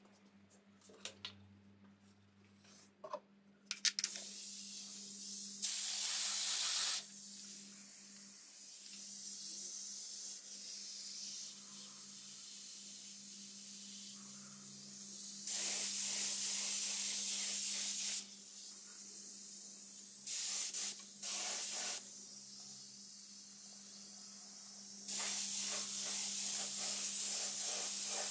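Gravity-feed paint spray gun spraying in five hissing bursts of half a second to three seconds each, with a quieter steady hiss in between. There are a few light clicks and taps in the first four seconds.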